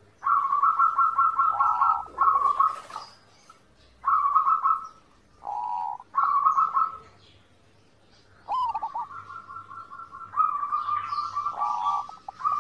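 Zebra dove (perkutut) singing its rapid, staccato cooing song in several bursts of about a second each, then a longer run of about four seconds near the end.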